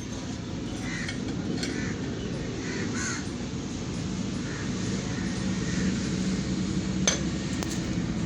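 A bird calling repeatedly, short calls about once a second in the first few seconds and fainter later, over a steady low hum. A sharp click comes about seven seconds in.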